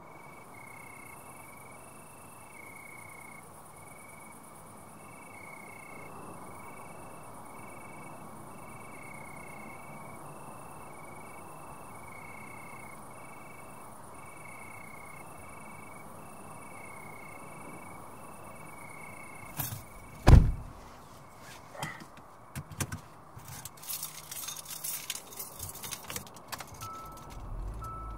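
Insects chirping in a regular pulsing rhythm over night hush. About two-thirds of the way in, a car door closes with a heavy thump, followed by keys jangling and small clicks and rattles inside the car.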